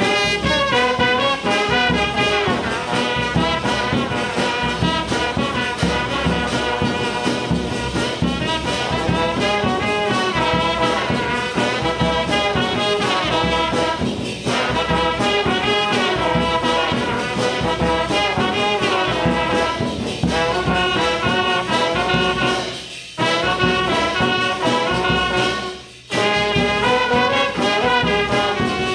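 Background music track with instruments playing, briefly dipping in loudness twice near the end.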